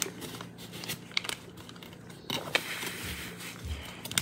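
Tissue paper and plastic snack wrappers crinkling and rustling as they are handled inside an opened cardboard snack box, in a few short scattered bursts.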